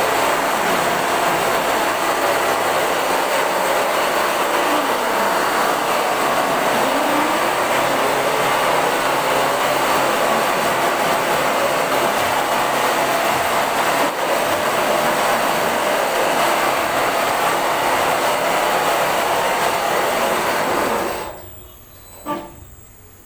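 Computerized single-needle quilting machine running steadily as its sewing head stitches a quilted bedspread on the frame, a dense continuous mechanical noise. The noise cuts off sharply about two seconds before the end, followed by a single short knock.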